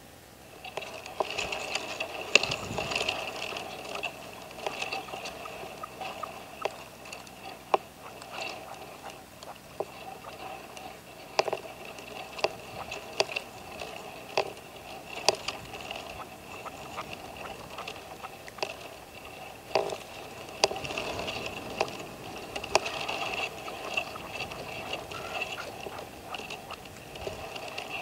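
Red-legged partridges calling: short, sharp notes at irregular intervals, sometimes several close together.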